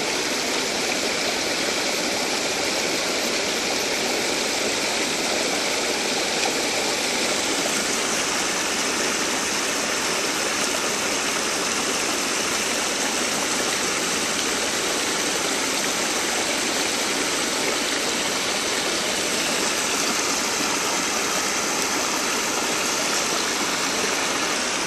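Muddy river water rushing steadily through and over a slatted fence built across the current, a constant spill of white water.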